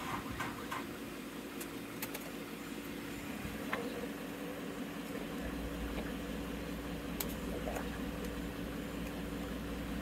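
A vehicle engine idling steadily, an even low hum that grows a little fuller about halfway through, with a few light clicks.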